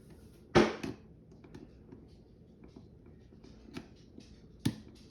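Hand tools working on an electrical receptacle's terminal screws: faint scraping and small ticks, with a sharp click about half a second in and another near the end.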